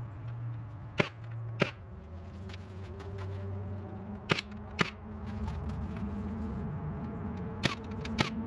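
Battery-powered Milwaukee framing nailer firing nails into wooden floor-frame studs: six sharp shots in three pairs, the two shots of each pair about half a second apart, over a steady low hum.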